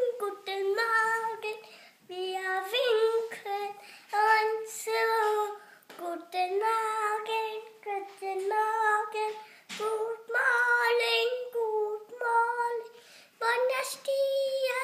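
A three-year-old boy singing a song in a high voice, in short phrases of held notes with brief breaths between them.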